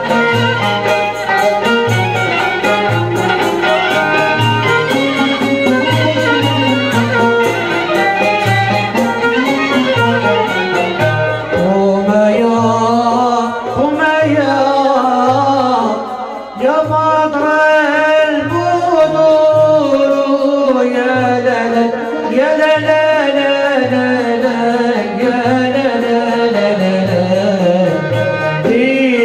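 Algerian malouf ensemble playing: violin, oud and flute carrying a winding melody over a steady darbouka and frame-drum beat.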